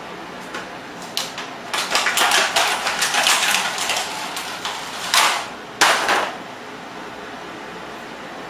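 Clear rigid plastic packaging crinkling and crackling as it is squeezed and handled close up: a dense run of sharp crackles, then two short louder bursts.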